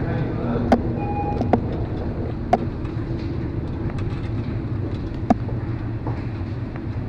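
Steady low machinery drone heard aboard a ship, with a few sharp knocks scattered through it.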